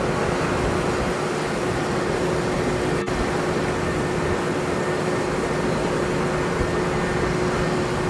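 Jet engine noise of a Boeing 787-9 Dreamliner with Rolls-Royce Trent 1000 engines rolling out on the runway just after landing: a steady rushing noise with a constant humming tone through it.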